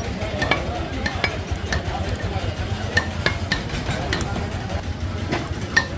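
Butcher's knife cutting beef against a wooden block, giving irregular sharp knocks about once or twice a second over a steady low hum.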